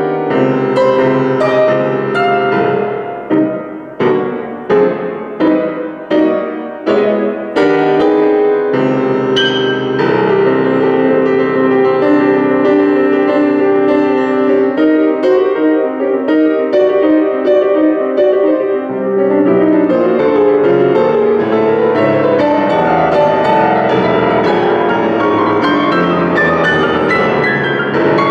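A Steinway grand piano played solo, fast and loud: a string of hard, separated chords struck about every two-thirds of a second, then, about nine seconds in, a continuous stream of rapid notes.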